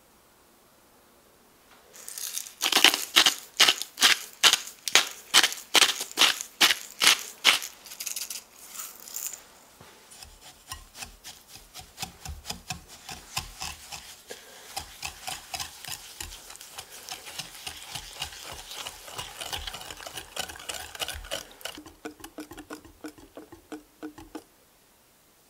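Wire whisk beating eggs and sugar in a glass bowl, starting about two seconds in. At first it clinks sharply against the glass about three times a second, then it moves on to faster, softer strokes through the liquid mixture, whisking until the sugar dissolves.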